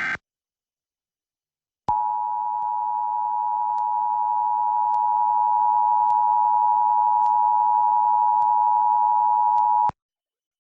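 Emergency Alert System attention signal: two steady tones near 853 and 960 Hz sounded together, starting about two seconds in and holding for about eight seconds before cutting off sharply. At the very start the last instant of a SAME digital header burst is heard.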